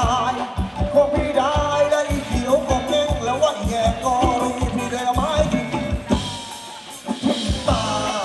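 Live band playing ramwong dance music: singing and melody over a steady, regular drum beat. It drops quieter for a moment about six seconds in.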